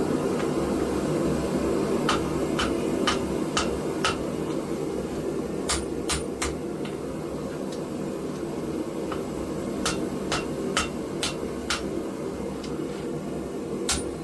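Hammer blows on hot steel at the anvil while a blade is being shaped: scattered single strikes, each with a short metallic ring, over a steady roar from the forge.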